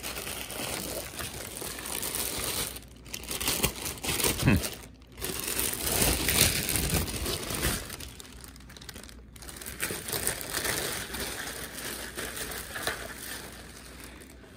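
Clear plastic packaging bag crinkling and rustling as it is handled, in uneven bouts. The crinkling is busiest in the first half and quieter toward the end.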